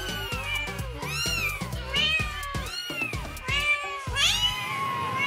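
Four-week-old Siamese kittens mewing over and over, each mew a short call that rises and falls in pitch. Background music with a steady beat plays under them and stops near the end.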